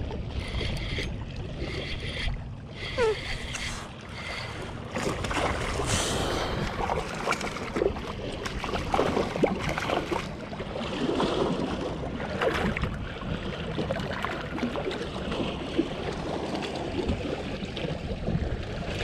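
Wind buffeting the microphone and lake water lapping against a kayak hull, with scattered clicks and knocks from rod and reel handling while a hooked fish is played.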